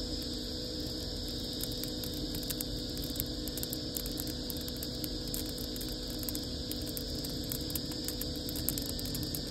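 Dry leaves and twigs burning in an outdoor fireplace, crackling with frequent small pops, over a steady mechanical hum.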